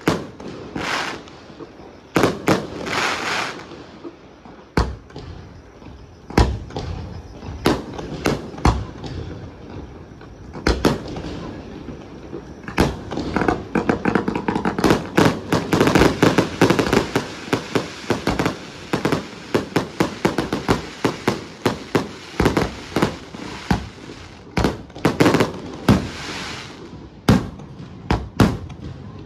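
Aerial firework shells bursting in a display: separate bangs at first, then from about halfway a dense, rapid barrage of bangs that thins out again near the end.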